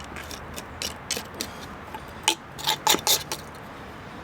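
A series of irregular sharp knocks and clinks from hard objects being handled and set in place, about a dozen strikes, bunched in the middle.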